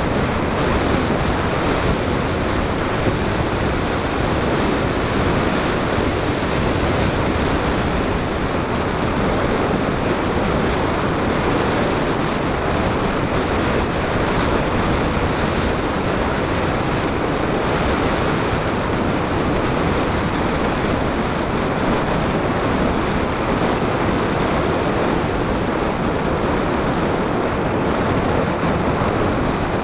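Steady rush of air and propeller noise on the onboard camera of a Bixler 3 electric RC plane in flight, with a thin high whine coming and going.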